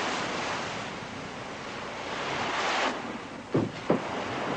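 Sea surf and wind, a steady rush that swells a couple of seconds in and drops off abruptly at about three seconds. Near the end come two short, loud pitched sounds about a third of a second apart.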